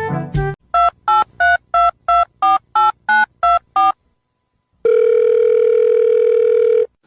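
A touch-tone telephone number being dialled: ten short two-tone keypad beeps, about three a second, then a steady telephone tone for about two seconds that cuts off suddenly.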